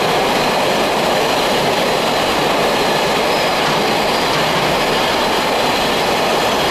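Freight train of enclosed car-carrier wagons passing close by at speed: a loud, steady rumble of steel wheels running on the rails.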